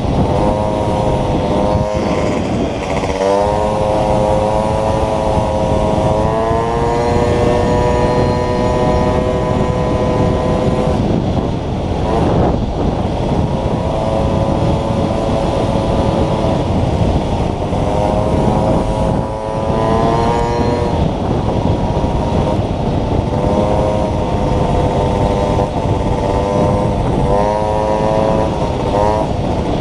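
Small motorcycle engine running hard on the move, its pitch climbing and levelling off several times as the throttle opens and closes. A dense low rumble of wind and road noise runs underneath.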